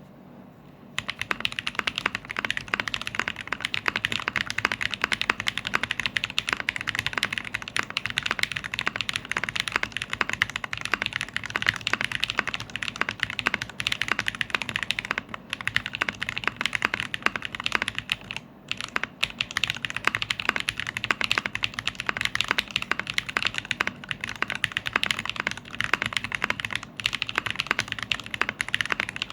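Fast, continuous typing on a Noir N2 Pro keyboard, its keys clacking in quick succession. The typing starts about a second in and breaks off briefly twice.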